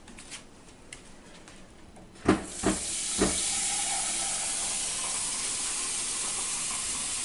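A few knocks, then a kitchen tap turned on about two seconds in, its water running steadily with a hiss as a cup is filled.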